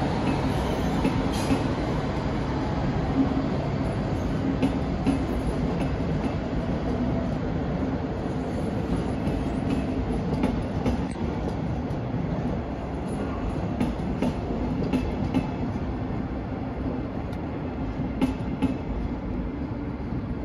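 Double-deck regional train rolling slowly over the yard tracks, wheels clicking now and then over rail joints and points, over a steady low hum. The sound fades gradually toward the end as the train moves off.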